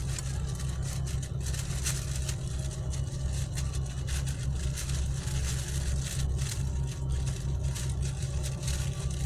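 A steady low rumble like a running motor, with faint scattered clicks over it.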